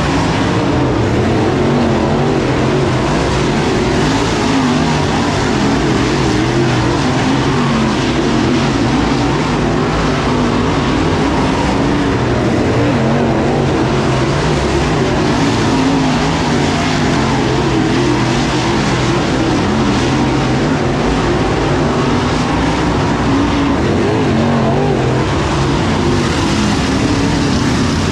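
Dirt-track race car engines running laps around the oval: a loud, continuous engine drone whose pitch rises and falls as the cars go around.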